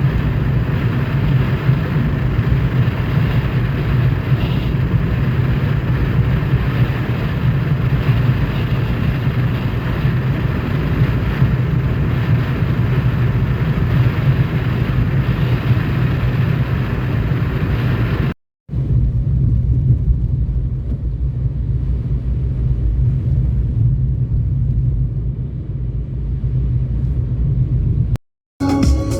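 Steady road rumble of a car being driven on a highway, heard from inside the cabin. It drops out briefly twice, and after the first break the hiss is duller.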